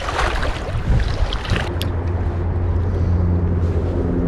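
Wind rushing on the microphone, then a steady low engine hum that sets in about two seconds in and holds.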